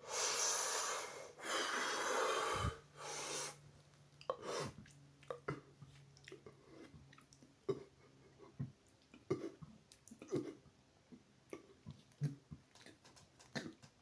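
A man taking three deep, noisy breaths, then a run of small scattered clicks and smacks from his mouth and throat as he works up a burp.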